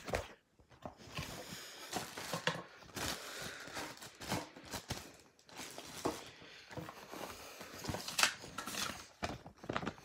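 Unpacking noises: irregular knocks, taps and rustles as a clear plastic candy-machine globe, cardboard packaging and a paper instruction sheet are handled.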